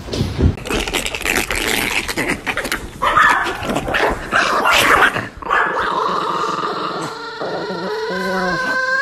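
Small dogs vocalizing in quick succession: short yips, barks and growls, then from about halfway a drawn-out whine that wavers in pitch near the end.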